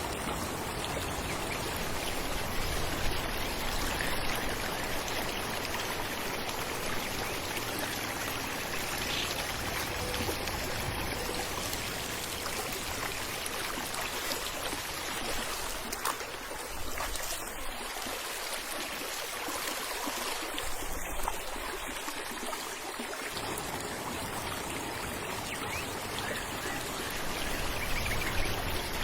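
Falling water running and splashing steadily, an even rushing sound with no other sound standing out.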